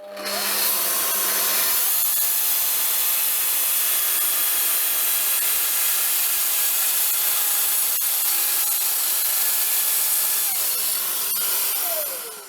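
Festool Rotex 150 eccentric sander running steadily against an end-grain pine board with 100-grit paper. It is switched on at the start and switched off near the end, its pitch falling as it spins down.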